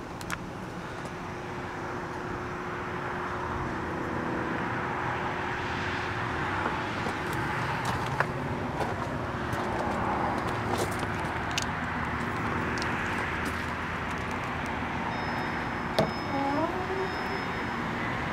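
Steady vehicle and road traffic noise, with scattered light clicks. A sharp knock comes about sixteen seconds in, followed by a brief rising squeal.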